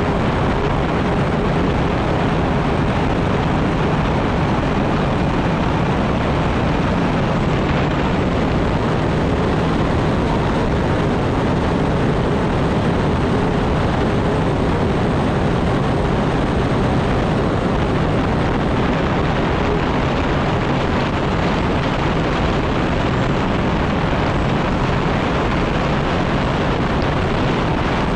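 Unlimited hydroplane's Lycoming T55 turbine engine running steadily and loudly, heard from on board the boat as a dense, unbroken rush of engine, wind and water noise with a faint high whine over it.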